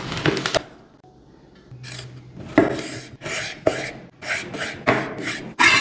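A large kitchen knife slicing through fruit and a lime on a wooden cutting board: a series of short rasping cuts.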